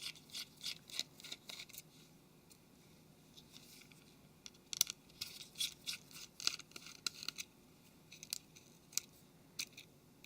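Small Torx screwdriver undoing the tiny screws that hold a smartphone's main board, with light metal clicks and scrapes in short clusters.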